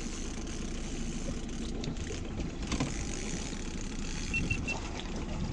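Boat's outboard motor running at a steady trolling idle, a low rumble. Three short high beeps sound about four and a half seconds in.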